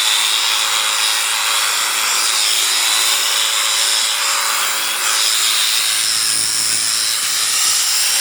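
Electric sheep shears running steadily while shearing, giving a continuous high-pitched whine.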